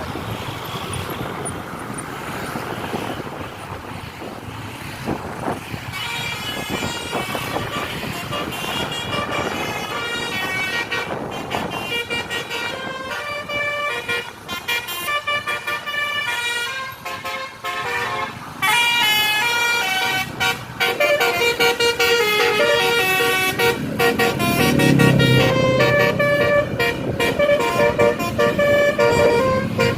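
Tour bus 'telolet' horn playing a quick tune of stepped notes, starting about six seconds in after a stretch of vehicle rumble and running on, growing louder near the end.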